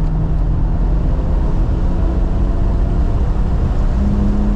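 2018 BMW M3 Competition's twin-turbo inline-six running on a race track, heard from inside the cabin under heavy road and wind rumble. The engine note eases down after about a second, then steps up in pitch about four seconds in as the throttle comes back on.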